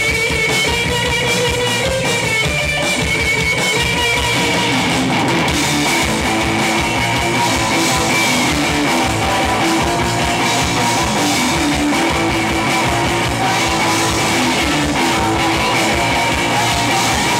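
Live punk rock band playing at full volume: electric guitar and drum kit going on steadily.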